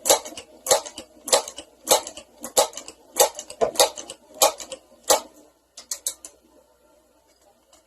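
Crosman 1322 multi-pump air pistol being pumped up: nine sharp, evenly spaced clacks of the pump lever, about one every 0.6 seconds, then three lighter clicks around six seconds in.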